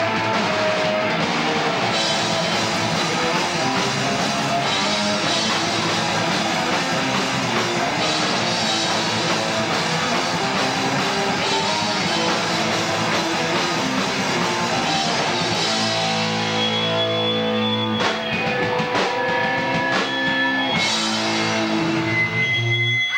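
Live rock band with drum kit and electric guitar playing loud and dense. About two-thirds of the way through, the full playing drops away into held, ringing chords and steady high tones with a few scattered drum hits, like the close of a song.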